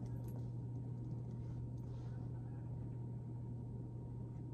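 Steady low electrical hum with faint background noise, no music or speech.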